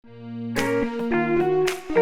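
Background music: a plucked guitar playing a melody of single notes, fading in at the start.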